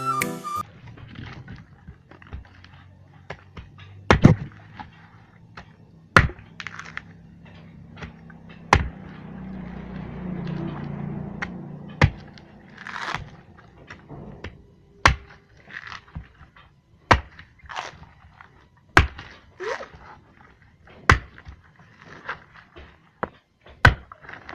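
Heavy bolo knife chopping into a coconut's fibrous husk: about nine sharp whacks, one every two to three seconds, as the husk is cut away.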